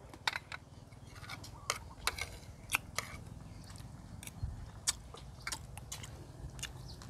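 A person chewing food close to a clip-on microphone: irregular short clicks and smacks of the mouth, about a dozen in all, over a faint low steady hum.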